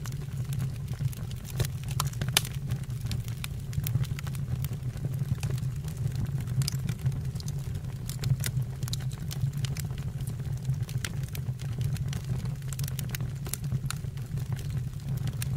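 Wood fire burning in a fireplace: scattered sharp crackles and pops over a steady low rumble from the flames.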